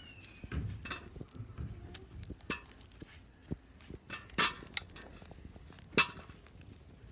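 Turnips and carrots knocking and clinking into a perforated aluminium colander as they are handled one by one, with two louder knocks in the second half, over soft scraping and rustling of soil and a woven plastic sack.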